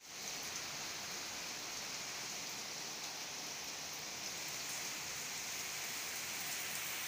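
Steady rain falling on wet ground, an even hiss with no break.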